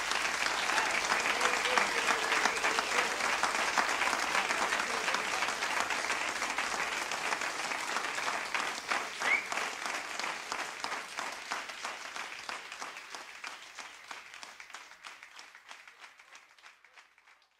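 Audience applauding at the end of a live jazz set, the clapping thinning and fading away over the last several seconds. A short rising whistle sounds about nine seconds in.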